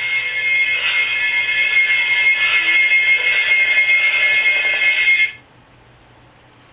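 A shrill alarm ringing steadily and pulsing about once a second, then cut off suddenly about five seconds in.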